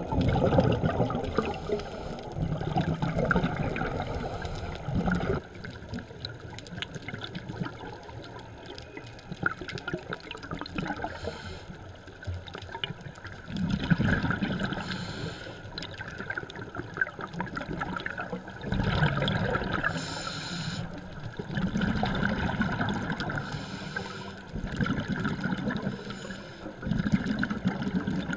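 Scuba diver breathing through a regulator underwater: a loud, low bubbling rumble of exhaled air every few seconds, with short high hisses between them.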